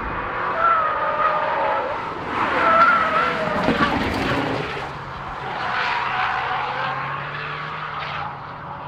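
Camouflaged MINI Clubman prototype's engine revving up and down through a corner, with a rough, gritty rush in the middle as its tyres run off onto the dirt verge and spray dust. The engine note fades away near the end.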